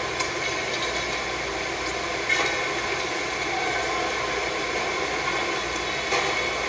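Steady din of a busy indoor play hall, with no clear speech.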